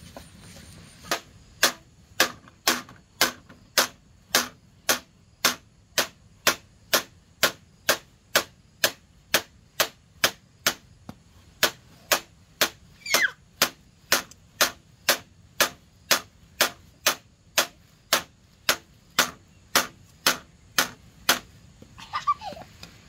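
Machete-like blade chopping into a bamboo pole on the ground, in a steady run of sharp hits about two a second that stops shortly before the end. A child's voice cries out briefly about midway and again near the end.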